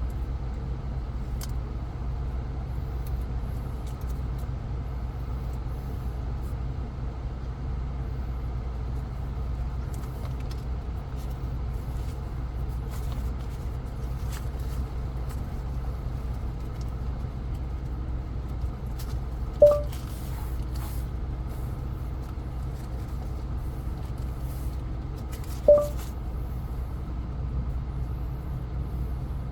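Steady low hum inside a pickup truck's cab, with faint small clicks and two short electronic beeps about six seconds apart in the second half.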